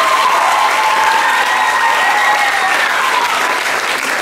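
Audience applauding loudly, with a long high-pitched cry held over the clapping.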